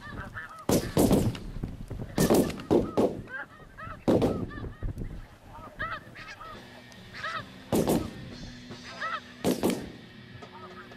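A flock of snow geese calling: many overlapping short honks, some faint and some close and loud, coming in clusters every second or two.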